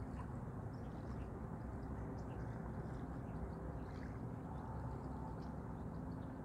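Quiet outdoor ambience: a steady low hum with a few faint, scattered bird chirps.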